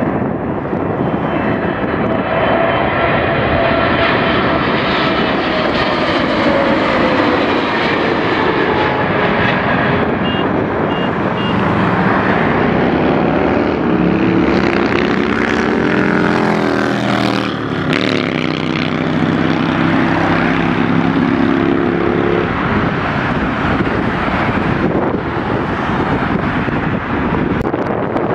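Jet airliner on approach passing close by: a loud, steady engine noise with whining tones that slowly fall in pitch as it goes by, then lower engine tones that hold and cut off about 22 seconds in.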